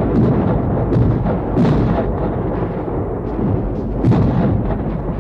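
Cartoon cannon fire: a bombardment of repeated booms, roughly one a second, over background music.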